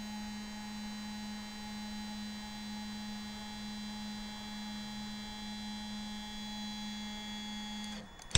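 Stepper motor driving the bench test rig's linear stage in a slow continuous jog, a steady low-pitched whine. It stops abruptly near the end and is followed by a sharp click.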